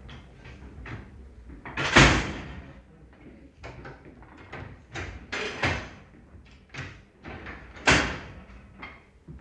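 Railway carriage doors slamming shut one after another, with two heavy slams about two seconds in and near the end and lighter knocks and clunks between.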